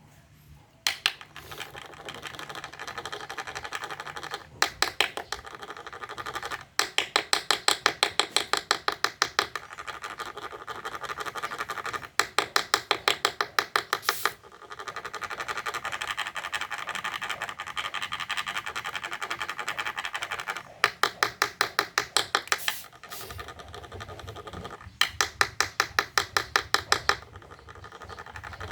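Rhythmic scratching in runs of quick strokes, about six a second, each run lasting a couple of seconds and broken by short pauses, over a steady rasp. The sound is typical of a handler's stick rubbed to provoke fighting rhinoceros beetles.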